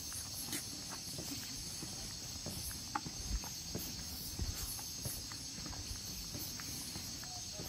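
A steady chorus of crickets chirring, with a few soft footsteps on a paved road and scattered small clicks.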